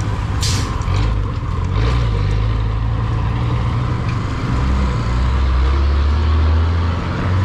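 Low-displacement motorcycle engine running while riding, a steady low rumble whose pitch shifts lower about halfway through.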